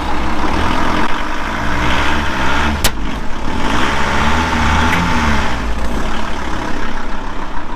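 Van engine running while driving, its pitch rising and falling as the revs change, over steady road noise. A sharp click comes about three seconds in.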